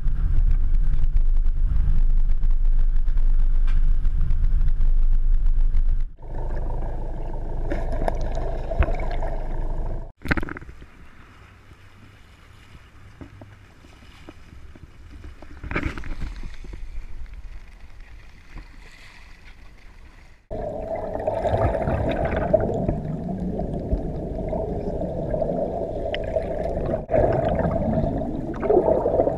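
Sounds aboard a fishing boat in several abruptly cut clips: a loud, low engine and wind rumble at first, then quieter stretches of water and hull noise, with a sharp knock about ten seconds in.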